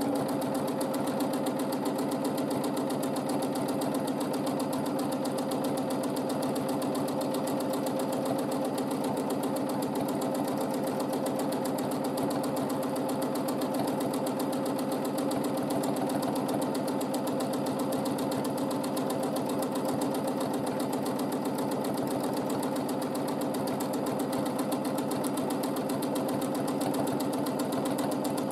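Domestic sewing machine running steadily at speed while free-motion quilting, a fast, even run of stitches over a constant motor hum.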